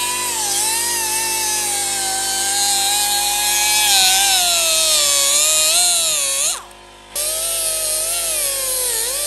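Air-powered die grinder with a small cut-off wheel cutting through the seized lower steering-stem bearing and race of a Yamaha Road Star. Its high whine sags in pitch as the wheel bites into the steel and recovers when the load eases, and the sound briefly drops away about two-thirds of the way through.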